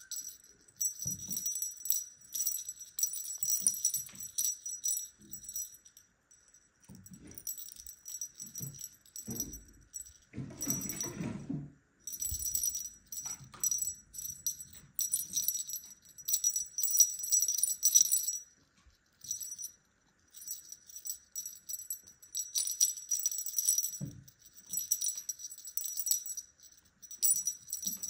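A small jingle bell on a feather wand cat toy jingling in irregular bursts as the wand is waved and batted by kittens, with short pauses. A brief dull rustle comes about ten seconds in.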